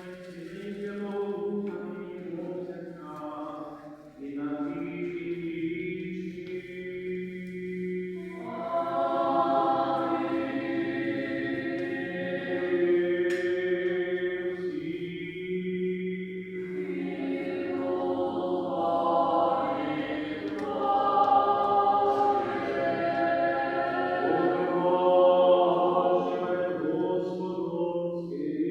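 Church choir singing a slow liturgical chant in long, sustained notes, swelling fuller and louder about a third of the way in.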